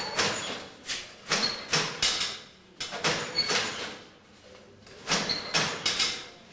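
Wooden hand loom being worked: rhythmic knocks and sliding clatter of the beater and shuttle, about two to three strokes a second. The strokes come in runs, with a pause of about a second a little past the middle.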